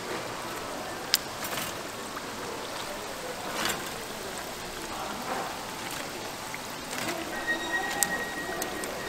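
Hot oil in a deep fryer sizzling steadily around battered fritters, with a few sharp clicks of metal tongs against the pan and rack.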